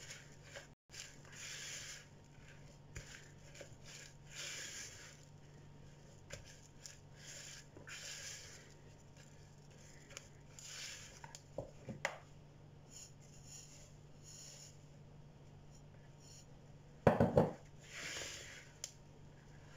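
Spatula scraping and stirring a crumbly ground-peanut and coconut dough in a bowl, in repeated strokes every second or two. There is a loud knock about 17 seconds in.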